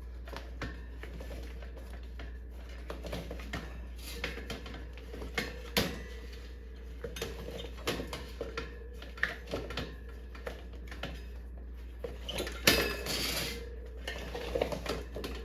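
Scattered clinks, knocks and rubbing as an inner tube is worked out of a motorcycle front tire still on its spoked rim, with a brief louder burst of handling near the end. A low steady hum runs underneath.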